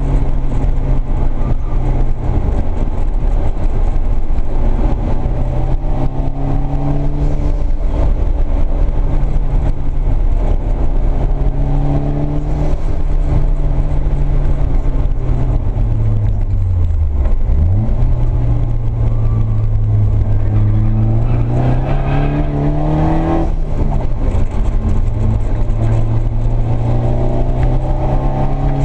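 Nissan 240SX S13's turbocharged SR20DET four-cylinder engine under way, heard from inside the cabin. The revs hold steady, fall off past the middle, then climb for several seconds and drop suddenly before holding steady again.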